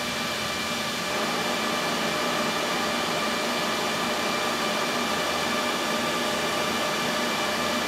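Server cooling fans running at a steady level, a constant rushing noise with a few faint steady whines in it.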